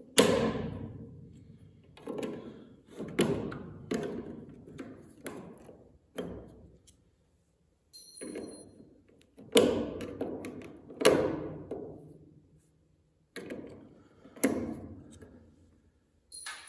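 Leatherman multi-tool prying and tapping at the lid of a metal stain can: about a dozen sharp metallic knocks, each ringing briefly, with a short high metallic ping about 8 seconds in and again at the end.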